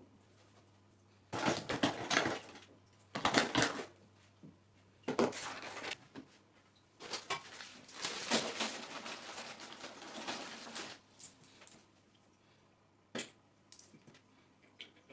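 Handling noise from setting up a small paludarium: four bursts of rattling and scraping, the last and longest running about four seconds, then a single sharp click and a few light ticks.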